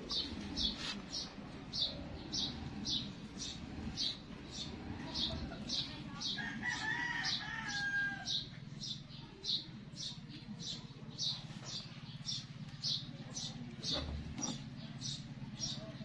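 A rooster crows once, about six and a half seconds in, a call of under two seconds. Behind it runs a steady series of short high chirps, nearly three a second, over a low hum.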